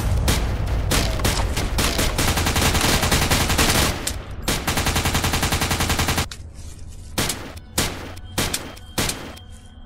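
Gunfire sound effects: rapid automatic fire for about six seconds, broken briefly near four seconds, then single shots about every half second.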